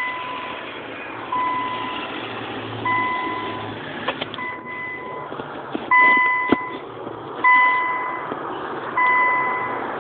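Electronic beeper sounding one steady tone in even, long beeps, about one every second and a half, with two sharp clicks in between.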